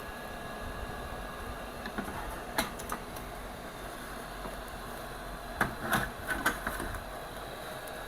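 A few small clicks and taps over a steady low hum: one about two and a half seconds in, then a quick cluster of four or five around six seconds in. These are the sounds of small tools being handled at a repair bench.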